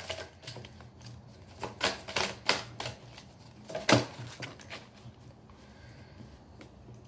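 A tarot deck being shuffled by hand: a run of irregular card clicks and flaps, busiest in the first four seconds, with the sharpest snap about four seconds in, then fainter.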